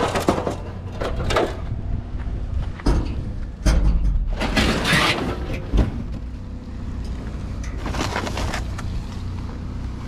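Bursts of scraping and rustling from junk being handled and dragged around: one about a second in, a longer one around the middle and another near the end, over a steady low rumble.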